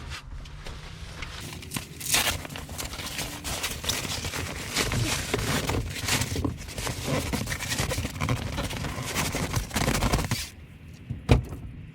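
Rustling and scraping of a fabric seat cover being pulled and worked over a truck seat, busy and irregular, then dying down near the end, with one sharp click shortly before the end.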